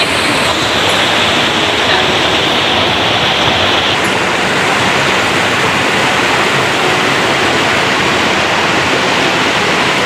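Clear rocky jungle stream rushing loudly over boulders and small cascades, a steady unbroken roar of water.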